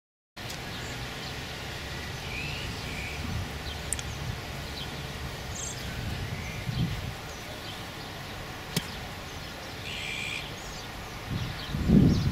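Open-air background with scattered short bird chirps over a low steady rumble, broken by two sharp clicks. Near the end a loud low gust of wind noise hits the microphone.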